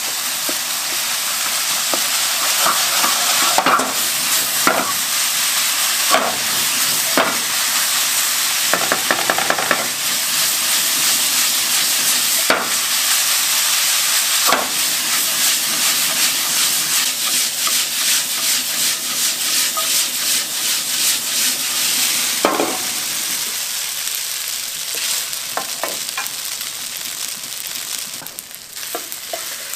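Fried rice sizzling steadily in a hot frying pan while a wooden spoon stirs it. A dozen or so short scrapes and knocks of the spoon against the pan stand out over the sizzle.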